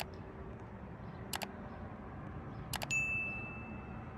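Subscribe-button animation sound effect: three mouse clicks about one and a half seconds apart, then a single bright notification-bell ding that rings out for about a second.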